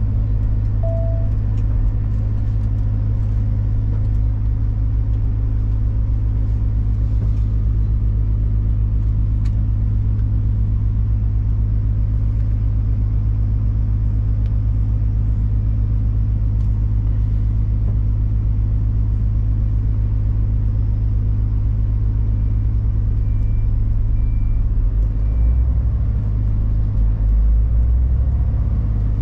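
Big truck's diesel engine running as heard from inside the cab while driving, a deep steady drone. A few short high beeps sound about three-quarters of the way through, and the engine note shifts near the end.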